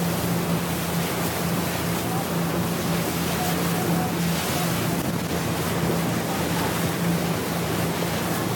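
Motorboat running at speed: a steady engine drone under the rush of water along the hull, with wind on the microphone.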